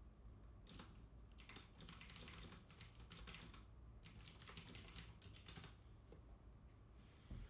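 Faint computer keyboard typing in quick runs of keystrokes, with a short pause midway, stopping a couple of seconds before the end.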